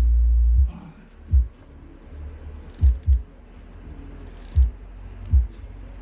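Low rumble and dull thumps of a handheld phone microphone being handled and knocked, with two short clicking bursts as a tool works on a fairing bolt of a Honda CBR600RR.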